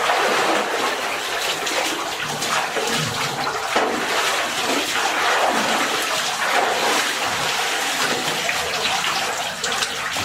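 Water pouring and splashing steadily into a pool, a continuous rushing, splashing noise.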